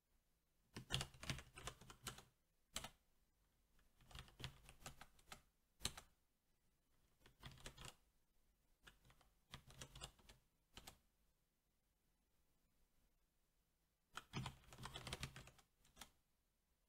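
Typing on a SteelSeries 6Gv2 mechanical keyboard with Cherry MX Black switches: short bursts of keystrokes as each answer is typed and entered, separated by pauses. A quiet stretch of about three seconds comes before a last quick burst near the end.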